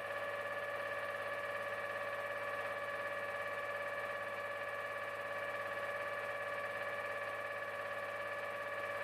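The coiled tubing unit's engine-driven hydraulic power pack runs steadily under pressure, with a constant whine of several steady tones over a low hum, while its P14 hydraulic pump is being set to neutral.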